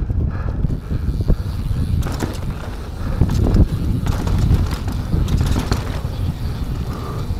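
Mountain bike rolling down a dirt trail: steady wind rumble on the microphone, tyre noise, and irregular clattering knocks from the bike over bumps.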